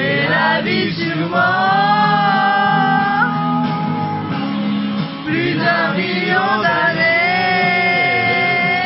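Song with a singer holding long, slightly wavering notes over a steady instrumental accompaniment.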